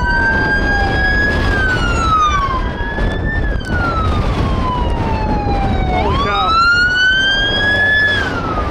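Emergency vehicle sirens wailing: two sirens rising and falling slowly out of step, one swooping back up sharply about six seconds in. Under them runs a steady low rumble.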